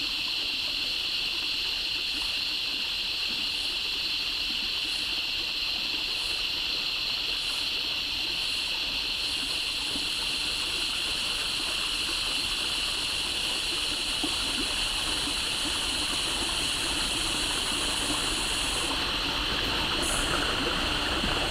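Creek water running steadily under a constant high drone of a cicada chorus. A second, higher buzz comes in short pulses about every second and a half, then holds steady for about ten seconds before breaking back into pulses near the end.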